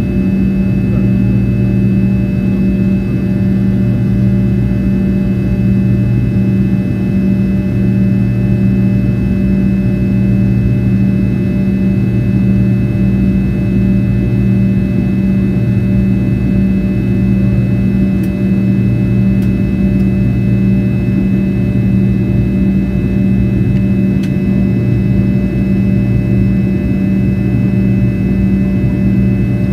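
Fokker 70's Rolls-Royce Tay turbofans droning steadily in flight, heard inside the cabin next to the engine. The low hum swells and fades about every two seconds, with a few steady higher whines above it.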